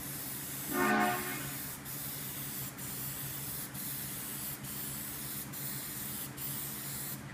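Plasti Dip aerosol spray can hissing as it lays a heavier third coat over a vinyl stencil, with a brief break in the hiss about once a second between passes. A short pitched tone sounds about a second in, over a low steady hum.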